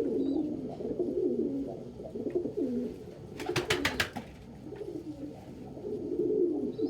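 Domestic pigeons cooing: repeated low, warbling coos with no pauses. A brief run of sharp clicks comes about three and a half seconds in.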